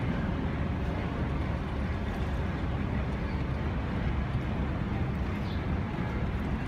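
Steady low rumble of a boat under way, mixed with wind buffeting the microphone.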